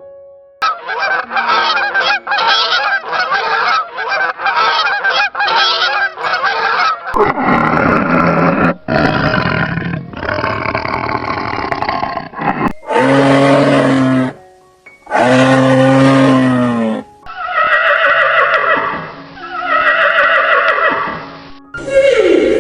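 A run of farm animal calls: rapid repeated honking calls for several seconds, then longer drawn-out calls, two long low pitched calls in the middle and several falling calls near the end, over faint piano music.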